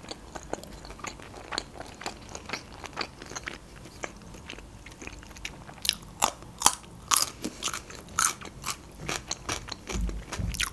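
Close-miked eating sounds: soft wet chewing and mouth clicks, then from about six seconds in several loud, crisp crunches of biting into and chewing a raw cucumber stick. A low thump near the end.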